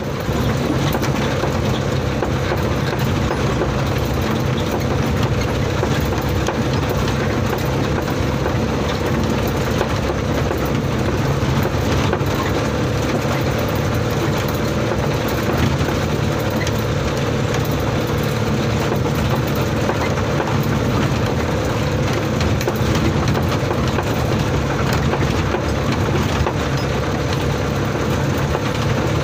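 Old truck's engine running steadily under load, heard from inside the cab on a rough dirt track, with frequent small knocks and rattles throughout.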